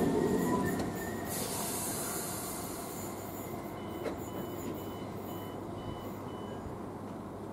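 Electric passenger train running away through the station, its rumble fading to a steady low noise, with a faint wheel squeal in the first second. About four seconds in comes a single click, and a run of six short, evenly spaced high beeps.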